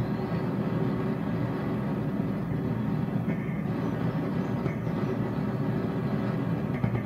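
Homemade torch burning propane with compressed air, its flame giving a steady low rushing roar.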